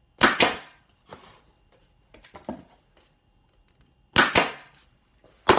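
Nail gun firing pins into a thin MDF box corner: sharp shots in close pairs, one pair just after the start and another about four seconds in, with a further shot at the very end and light handling knocks between.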